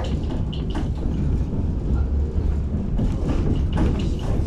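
Tatra T6B5 tram running along the track: a steady low rumble with repeated clicks and knocks of the wheels on the rails.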